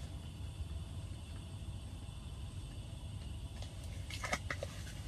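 Steady low rumble, with a few faint clicks about four seconds in.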